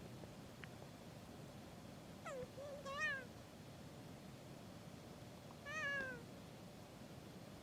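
Kea, the New Zealand mountain parrot, giving two short calls about three seconds apart, each arching up and then down in pitch.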